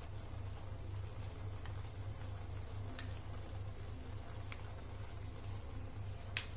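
Pot of biryani on a gas stove giving a few faint, scattered crackles over a steady low hum.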